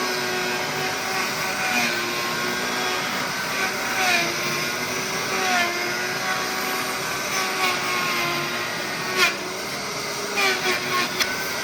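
Router running on a router table while a plastic part is fed around its perimeter, the motor's whine dipping in pitch and recovering every second or two as the bit takes load. A few sharp knocks near the end.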